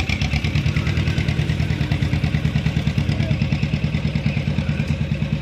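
A small engine running steadily with a fast, even throbbing beat.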